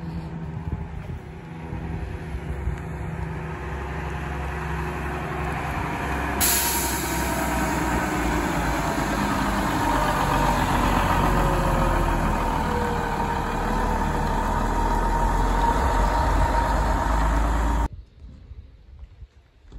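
Diesel coach engine running close by, a steady low engine note that steps up in loudness about six seconds in and stops abruptly near the end.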